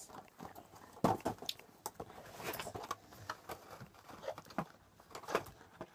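Crinkling of a plastic wrapper being handled and opened, with scattered small clicks and knocks.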